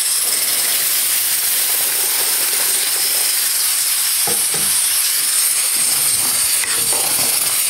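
Steady, loud hiss of steam and sizzling from pots cooking on a gas stove.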